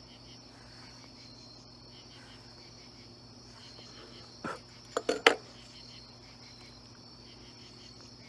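Crickets chirping in a steady, pulsing high chorus. About halfway through, a short knock is followed by a quick run of three sharp clicks, the loudest sounds.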